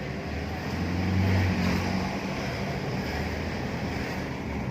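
Cabin noise of an Isuzu D-Max pickup on the move: the 3.0 L four-cylinder turbodiesel (4JJ3-TCX) running with a steady low hum and road rush, a little louder about a second in. No brake hiss stands out; the brakes have just been cleaned and the hiss is reported gone.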